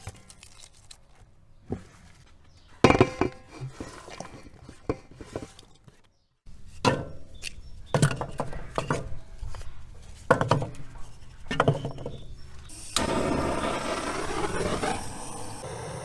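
A loud clatter about three seconds in. Then split firewood logs are dropped one by one into a stove's cast-iron firebox, with separate dull wooden knocks. About three seconds from the end a wood fire starts crackling loudly and then settles to a steadier crackle.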